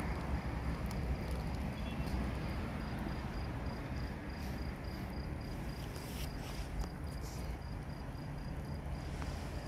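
Cardboard and wood scraps burning in a metal fire drum: a steady low rush of flames with scattered crackles and pops, thicker around the middle. A cricket chirps in an even, steady pulse behind it.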